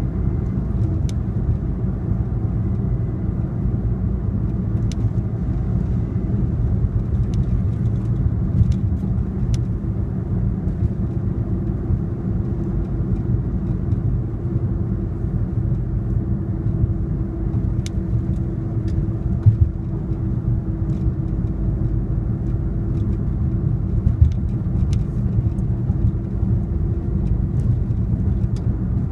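Car interior road noise while driving: a steady low rumble of engine and tyres, with a faint steady hum through the middle stretch and small faint clicks here and there.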